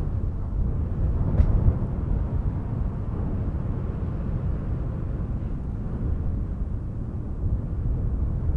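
Wind blowing in a steady low rumble, with a stronger gust about a second and a half in.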